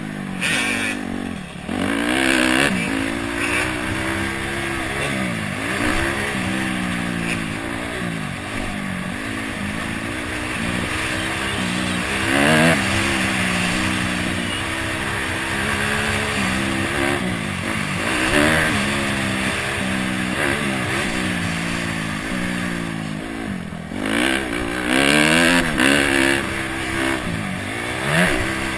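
Honda CRF250X's single-cylinder four-stroke engine revving up and down as the dirt bike is ridden hard around a motocross track, its pitch rising and falling over and over, with brief drops in revs about a second and a half in and again near the end.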